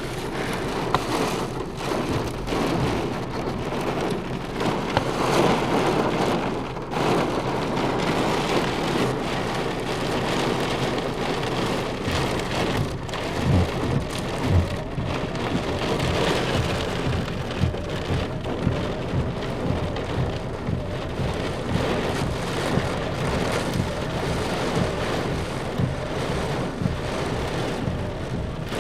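Torrential rain pelting a car: a dense, steady hiss with many sharp drop impacts, and a couple of louder low thumps about halfway through.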